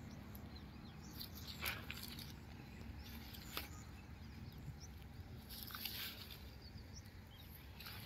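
Faint footsteps crunching through dry grass and weeds: a few scattered crackles over a low steady rumble.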